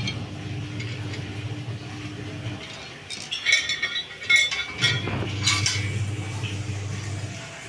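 Steel satellite-dish mount parts and a metal tool clinking and rattling against each other and the tiled floor as they are handled, a quick run of sharp ringing clinks in the middle. A low steady hum sounds under it at the start and again in the second half.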